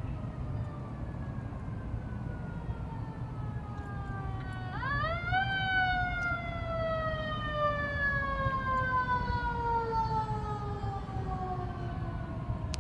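Emergency vehicle siren wailing: a falling tone fades at first, then about five seconds in it climbs sharply and falls slowly over the next several seconds. Low traffic rumble underneath.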